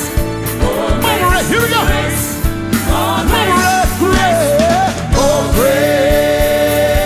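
Live gospel band playing with drums, with a singer running a bending vocal melody; about five and a half seconds in, a long held note begins.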